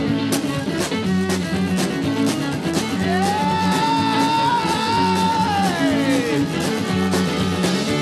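Country band playing an upbeat passage with a steady beat. About three seconds in, a lead instrument slides up into one long held note that bends back down a few seconds later.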